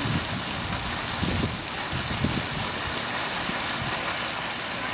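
Firework fountain spraying sparks with a steady, unbroken high hiss.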